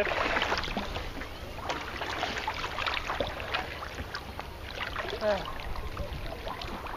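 Water lapping and splashing against sea kayak hulls, with many small crackling splashes, and a short faint voice about five seconds in.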